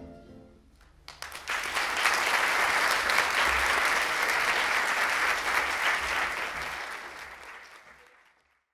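Audience applauding: a few scattered claps about a second in, quickly building to full steady applause, which fades away near the end.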